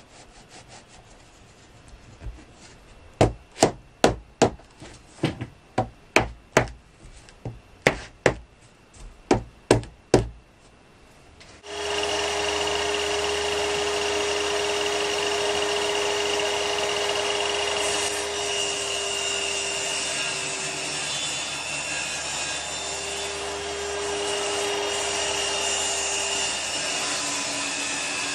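A run of about fifteen sharp knocks on laminate boards, then a power saw starts and runs steadily with a high whine, its tone sagging briefly partway through as it cuts.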